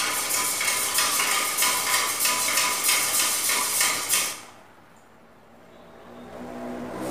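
Oil paint being stirred in a metal paint tin: quick scraping and clinking of the stirrer against the tin's sides, stopping suddenly about four seconds in.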